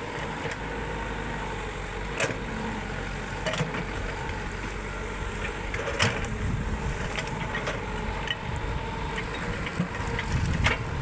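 Excavator diesel engine running steadily, with several sharp metallic knocks or clanks over it.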